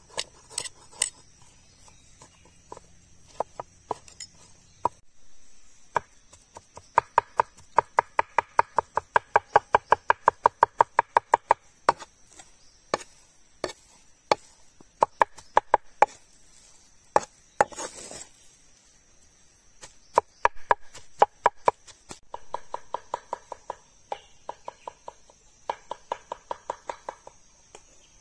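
A large kitchen knife chopping soft mashed vegetables on a wooden cutting board: sharp blade strikes against the board in fast runs of about five a second, broken by short pauses.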